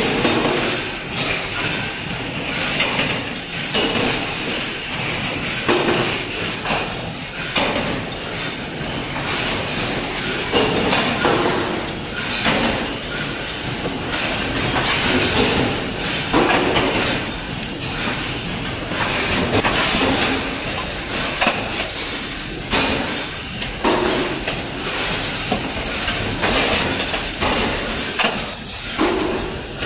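Forging shop machinery running: a mechanical stamping press line with irregular metallic clanks and knocks over a steady machine noise.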